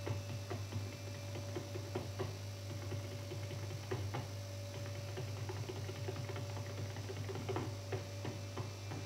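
Tap dancer's shoes striking a hard stage floor in an unaccompanied solo: irregular sharp taps, several a second. A steady low hum runs underneath.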